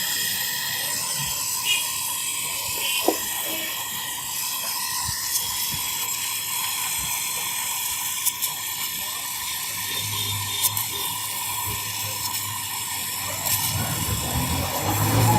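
Gas brazing torch flame hissing steadily while refrigerator compressor pipe joints are brazed, with a few light clicks. A low hum comes in about ten seconds in.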